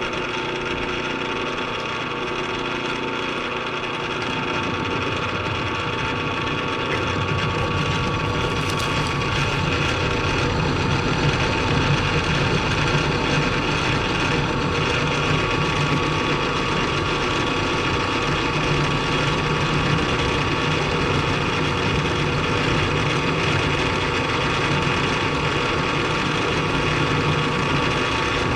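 Milling machine running steadily as its cutter takes another cut in a T-nut blank. The low cutting noise grows a few seconds in and then holds.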